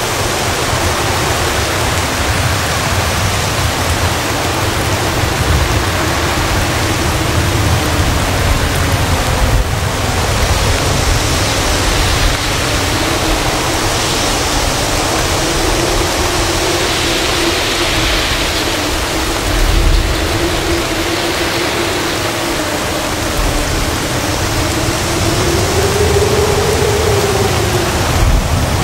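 Heavy rain pouring and strong wind gusting through coconut palms in a tropical storm, a steady loud rush with a low rumble from the gusts. A faint low wavering howl runs through it and rises briefly near the end.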